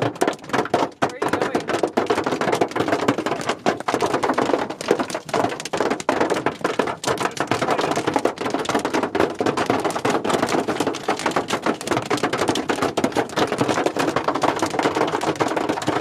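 Hail and heavy rain pelting the car's roof and windshield, heard from inside the car: a dense, continuous clatter of sharp hits.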